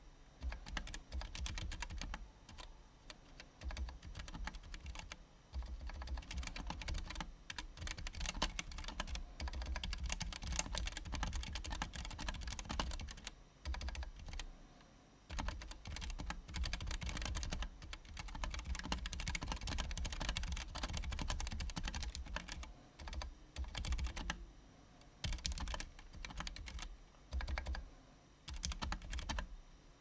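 Fast typing on a custom mechanical keyboard with Gateron Clear linear switches, PBT keycaps and a bent steel case: a rapid, continuous stream of key clacks broken by a few short pauses, stopping near the end.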